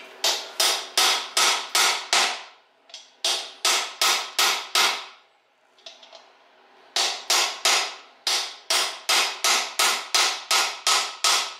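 Hammer striking an aluminium bearing-race driver, driving the pinion bearing race into the bore of a GM 8.2-inch 10-bolt axle housing: sharp ringing metal blows at about three a second, in two short runs and then a longer steady run. The race is still moving in and has not yet bottomed out.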